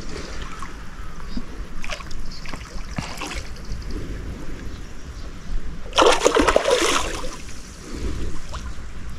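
Water splashing where a hooked carp fights at the surface on the line, in a few short splashes with a louder one lasting about a second, six seconds in.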